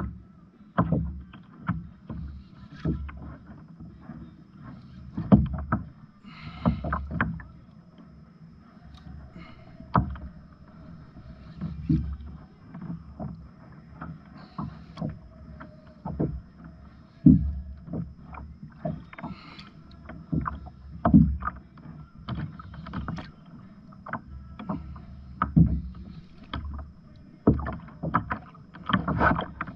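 Water slapping and knocking against a fishing kayak's plastic hull at sea, in irregular knocks about one or two a second over a steady low wash.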